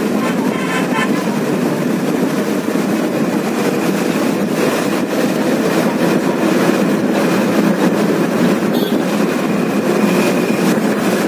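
Steady engine and road noise inside a moving bus.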